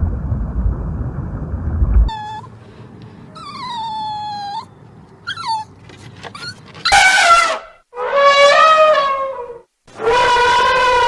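A low rumbling noise cuts off about two seconds in. A dog then whines and howls in thin, falling cries, followed by three loud, drawn-out lowing animal calls.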